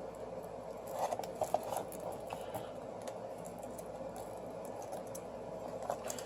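Light clicks and scratches of small hand tools working on a smartphone's screen assembly, in a cluster about a second in and again near the end, over a steady background hum.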